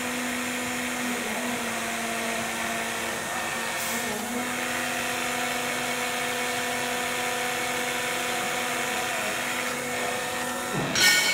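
Electric hydraulic pump unit of a hydraulic torque wrench running steadily with an even motor hum, driving the wrench as it tightens flange bolts. Near the end there is a brief louder surge.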